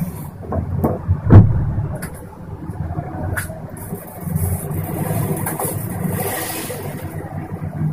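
Gas stove burner lit by hand with a flame: a few sharp clicks and knocks in the first seconds, the loudest about a second and a half in, then a soft hiss as the gas burns, over a steady low rumble.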